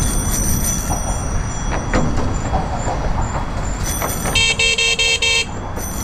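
Loud Bicycle Mini car horn on a bicycle, sounded in a quick string of about five short honks lasting about a second, some four and a half seconds in, over a steady low rumble of wind and riding noise.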